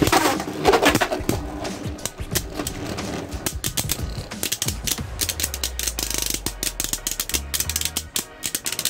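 Two Beyblade Burst spinning tops, Helios Volcano and Hyperion Burn, launched into a plastic stadium: a burst as they are ripped off their launchers, then a dense, rapid run of clicking and rattling as the tops collide and grind against each other while spinning.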